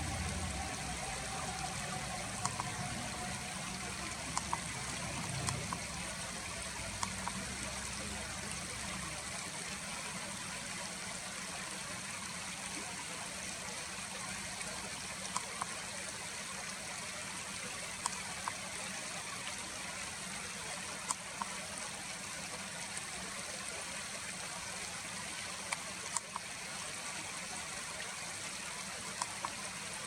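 Steady rush of a flowing stream, with a low rumble underneath that fades out about nine seconds in and a few faint scattered ticks.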